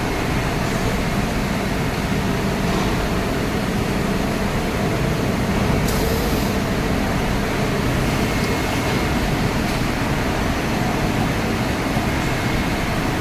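Steady running noise of a CNC machine: an even low hum and hiss, with a brief high hiss about six seconds in.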